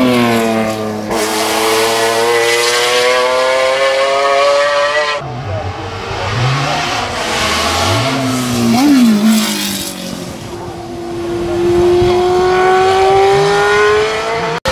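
Race car engines accelerating at high revs, the note climbing steadily for about five seconds, then changing abruptly to a stretch of short pitch swings up and down between gearchanges, and climbing again in the last few seconds.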